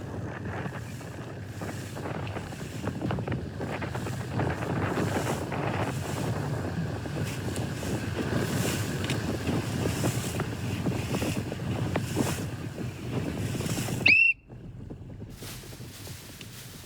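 Strong wind buffeting the microphone and water rushing past an ILCA (Laser) dinghy sailing in big waves. About fourteen seconds in there is a brief high chirp, then the sound cuts abruptly to a quieter wind hiss.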